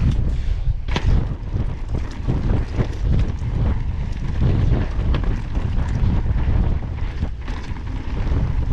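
Wind rushing over the microphone as an Evil Wreckoning mountain bike runs fast down a loose gravel track, with tyres crunching on the stones and the bike rattling and knocking over bumps.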